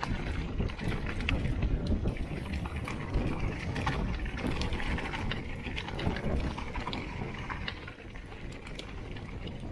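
Steady rumbling wind noise on the microphone, with many sharp clicks and rattles scattered throughout.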